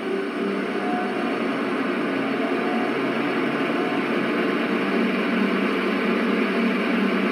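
ESU sound decoder in an LGB G-scale model of the RhB Ge 4/4 III electric locomotive playing a steady hissing, whirring running sound through its small speaker, thin and without any bass.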